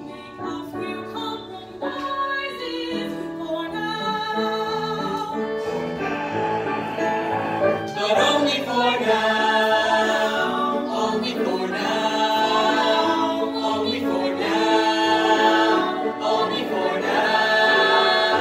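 Stage musical number sung live by a male and a female singer with a choir and instrumental accompaniment; the singing grows louder and fuller about eight seconds in.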